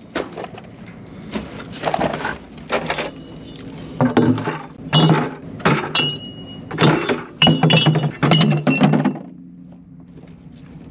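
Pieces of scrap metal clanking and ringing as they are tossed one after another into a bin, a dozen or so hits over about nine seconds. They stop near the end, leaving a steady low hum.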